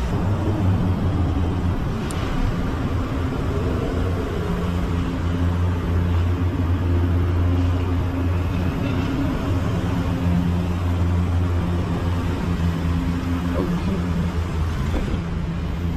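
Steady low engine hum, a constant drone that holds level throughout, over a wash of road noise.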